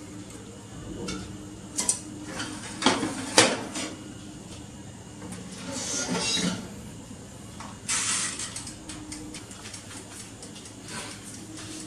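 Metal tongs clinking and scraping on the wire rack of an oven toaster grill as chicken breasts are turned over, with the sharpest clinks around three seconds in. Later the rack is pushed back and the oven door shut, with a rattle around six seconds in and another near eight.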